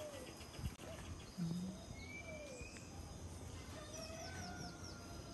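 Birds calling over a steady low background hum: scattered whistled notes, a rising whistle about two seconds in, and a quick run of five short high chirps around four seconds in.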